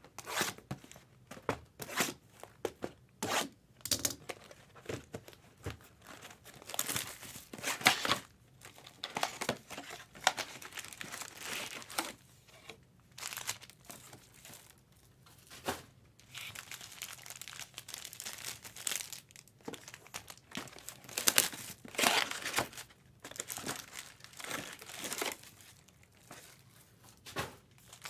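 Trading card packaging being torn open and crinkled: plastic wrap and pack wrappers ripped and rustled in irregular bursts.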